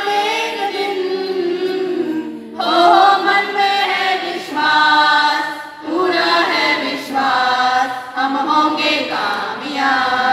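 A group of voices singing a song together on stage, in phrases of about three seconds with held notes and short breaks between them.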